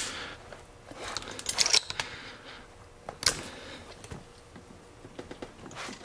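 Steel chisel blade scraping and clicking against the metal plug of a disc detainer padlock as it is levered out against its retaining spring clip. There are a few sharp metallic clicks, the loudest about three seconds in.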